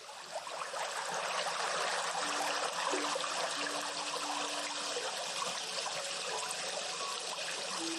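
Water flowing and trickling steadily, like a small stream, fading in over the first second. A faint low held tone sounds from about two seconds in for about three seconds, and another begins near the end.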